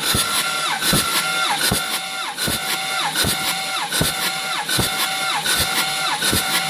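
Ford 6.0L Power Stroke diesel turned over on its starter with the glow plugs out and no fuel, for a compression test. It gives a steady cranking whine that sags in pitch in an even rhythm, about once every three-quarters of a second. The cylinder under test builds about 390 psi.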